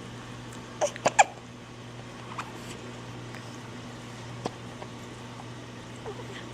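Baby wombat hiccuping: three sharp hiccups close together about a second in, then a few fainter single ones spread out after.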